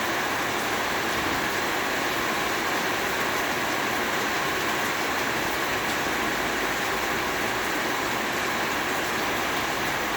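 Heavy rain falling steadily, a dense, even hiss that neither rises nor falls.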